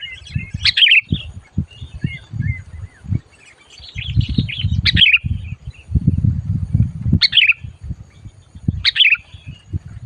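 Sooty-headed bulbul (kutilang) chattering in loud bursts about every two seconds, calling hard and aggressively as a decoy bird at a trapping site. A low rumbling noise runs underneath.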